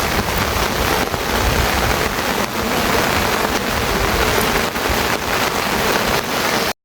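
Steady heavy rain falling, with many separate drop hits in a dense, even hiss.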